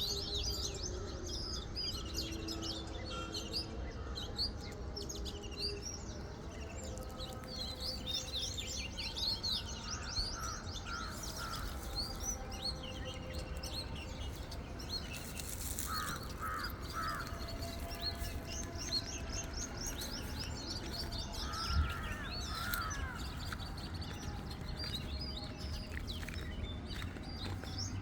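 Many small birds chirping and twittering continuously, with a lower call given three times in quick succession on a few occasions, over a steady low background rumble.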